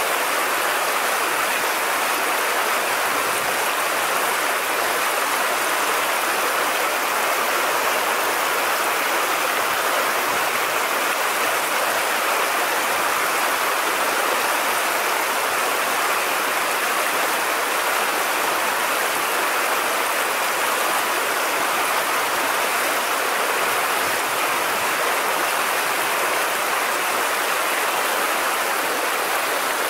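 Shallow river water flowing over a riffle, a steady, even rush.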